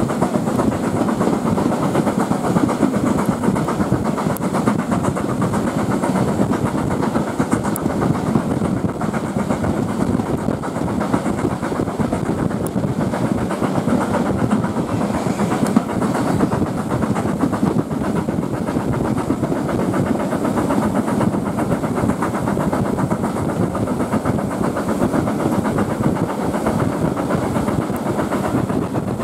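A steam-hauled train running, heard from a carriage window: a steady rumble and clatter of the carriage wheels on the rails.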